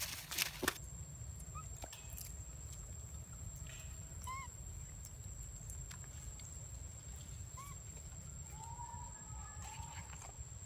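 Forest ambience: a couple of crunching steps in dry leaf litter right at the start, then a steady low rumble and a thin, steady high whine. A few short chirping animal calls sound, about one every three seconds, and a longer wavering call near the end.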